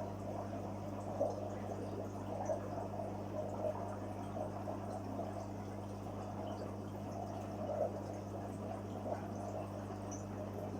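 Water bubbling and trickling in a koi fry tank, with small irregular splashes, over a steady low electrical hum.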